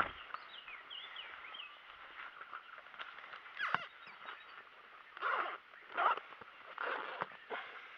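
Short rustling and handling noises from a fishing tackle bag, four bursts in the second half after a sharp click, over an outdoor background with small birds chirping briefly near the start.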